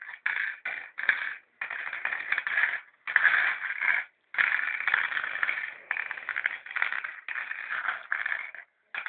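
Mangala stones rattling and clicking as they are scooped up and dropped into the pits of a mangala board, in spells about a second long with short pauses between them.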